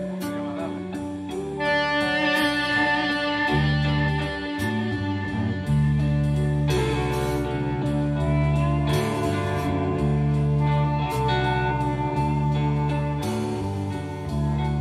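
A rock band playing at rehearsal: electric guitar over held bass notes, with regular drum and cymbal hits.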